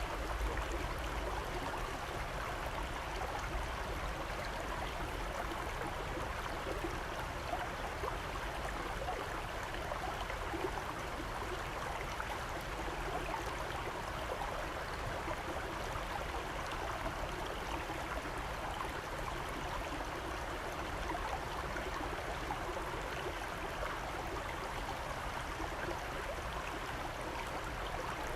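Steady rushing of flowing water, a stream running evenly throughout.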